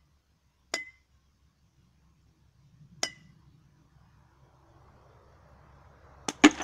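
A rubber mallet strikes the mouth of a water-filled glass bottle, each blow a sharp clink with a brief ring. There are two single blows about two seconds apart, then two quick, louder blows near the end. The blows send a pressure pulse through the water, meant to knock out the bottle's bottom.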